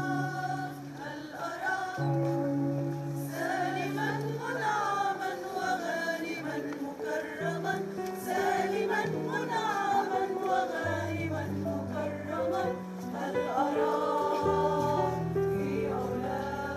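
Music: a singing voice carrying a slow, wavering melody over held low chords that change every second or two.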